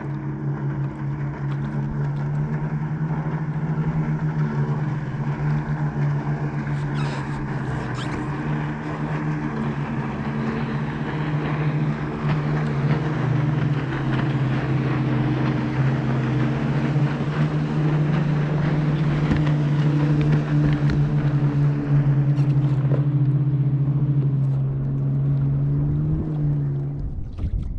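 Motorboat engine running with a steady hum, growing somewhat louder in the second half and stopping abruptly just before the end.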